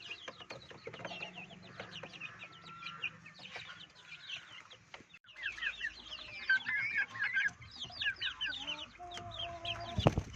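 A flock of native chickens clucking, many short calls overlapping, with a brief break about five seconds in. There is a held call a little before the end and a sharp knock right at the end.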